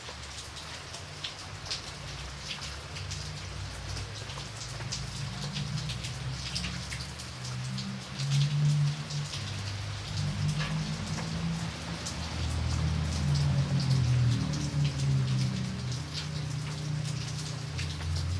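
Light rain falling, with many separate drops ticking and pattering on a surface. A low rumble underneath grows louder about halfway through.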